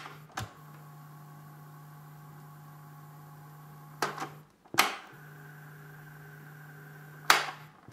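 Cassette deck transport keys on a Panasonic RX-CS710 boombox clicking as they are pressed, about four sharp mechanical clicks with the loudest near the middle. Between the presses the deck's motor runs with a steady low hum, stopping and starting with the keys.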